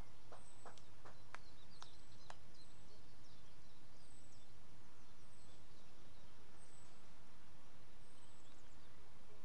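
Small birds chirping outdoors, one repeating a short, high, falling call about once a second, over a steady low rumble. A few short clicks sound in the first two seconds.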